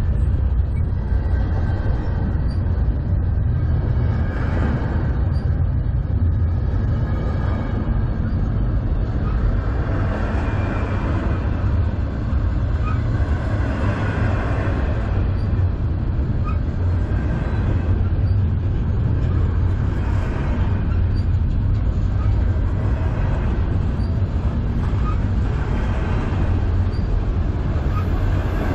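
Intermodal freight train's loaded well cars rolling past close by: a steady, loud low rumble of steel wheels on the rails.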